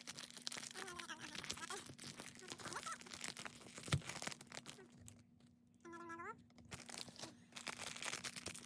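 Plastic blind-bag wrappers crinkling and tearing as small toy figures are pulled out, with a sharp tap about four seconds in.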